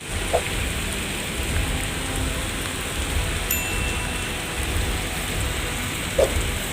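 Heavy rain pouring steadily, with a low rumble under it. Two brief higher-pitched sounds cut through, one near the start and one near the end.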